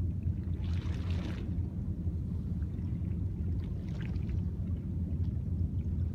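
Waterside ambience at a seawall: a steady low rumble throughout, with a soft swishing wash about a second in and a fainter one about four seconds in.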